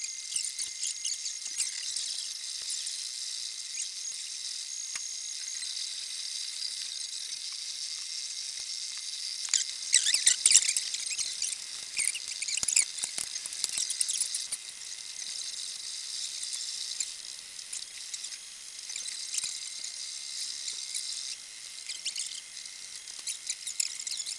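MakerBot Replicator 2 3D printer running a print: its stepper motors drive the extruder head in fast, high-pitched chirps and whirs over a faint steady high tone, with a louder flurry about ten seconds in.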